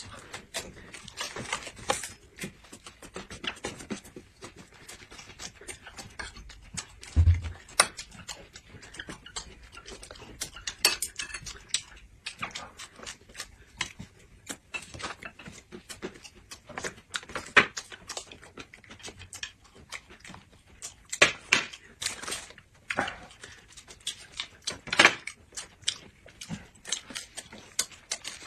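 Mealtime eating sounds: biting and chewing a rolled coarse-grain pancake wrap, with the thin, dry pancake crackling as it is folded and chopsticks clicking against dishes, heard as many short, irregular crackles and clicks. One low thump about seven seconds in.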